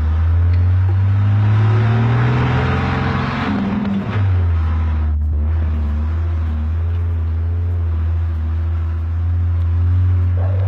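Saurer D180 4x4 military truck's diesel engine pulling under load off-road, its pitch rising for the first few seconds, dropping suddenly about four seconds in, then running steadily and climbing a little again near the end.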